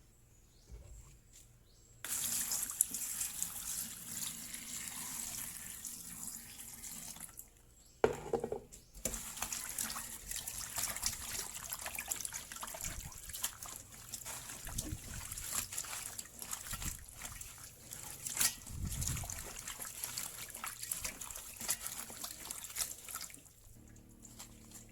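Water running and trickling, dotted with small clicks and knocks of handling. It starts about two seconds in, breaks off briefly with a knock around eight seconds, then runs on until near the end.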